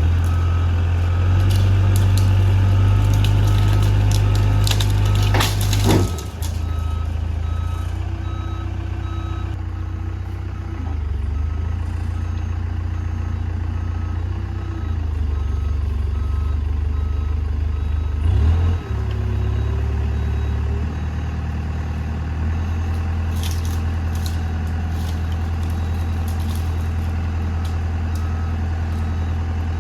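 Diesel engine of heavy machinery running under changing load, with a backup alarm beeping steadily as the machine reverses. Two sudden louder noises cut in, about six seconds in and again past the middle.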